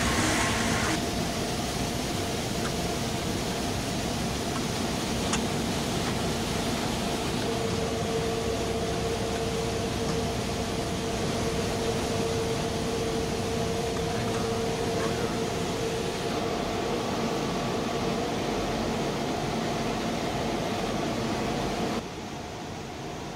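Steady drone of workshop machinery carrying a few constant hum tones, with a faint click now and then; the drone drops in level near the end.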